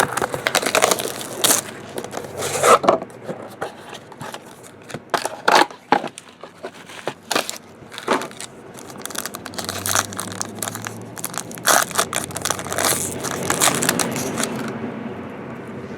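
Trading-card box and pack wrapping being torn open and crumpled, with irregular crackling, tearing and sharp rustles as the cards are pulled out.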